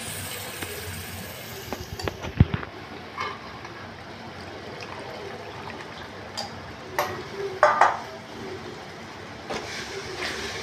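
Onion-and-spice curry base in a pan hissing steadily as it cooks in freshly added tamarind water, with a steel slotted spatula clinking and scraping against the aluminium pan several times, around two seconds in, around seven to eight seconds, and as it stirs near the end.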